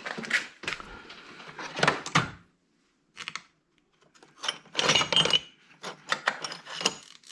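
Metal clinks and clatter of small tools and hard-drive parts being picked up and handled, in several short bursts with quiet gaps between.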